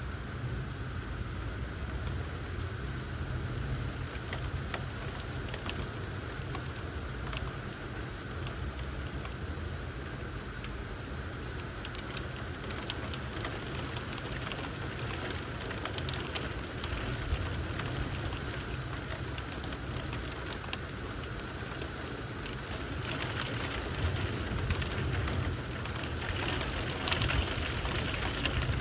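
Steady rain falling, with many scattered drops ticking on a surface over a low steady rumble; the rain grows a little heavier and busier in the last few seconds.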